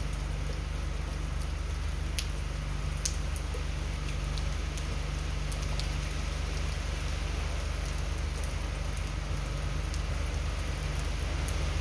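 Heavy hurricane rain falling steadily, with scattered sharp ticks of drops and a low steady rumble underneath.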